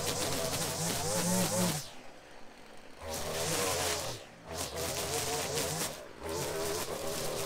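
String trimmer cutting grass, its motor rising and falling in speed. It eases off for about a second around two seconds in, and briefly twice more later.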